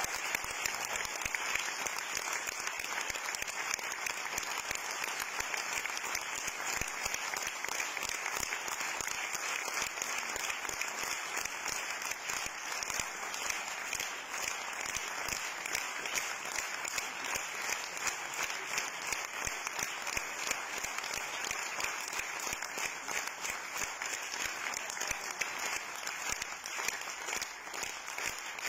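Theatre audience applauding, a dense, steady clapping that runs on without a break and eases slightly near the end.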